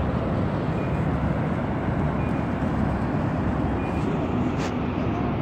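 Steady low outdoor rumble without a break, with a brief click about four and a half seconds in.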